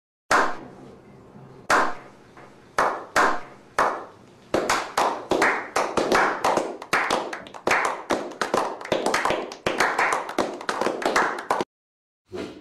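Hand clapping from a small group in a slow clap. A few single claps come about a second apart, then more hands join and the clapping quickens into brisk applause, which stops abruptly near the end.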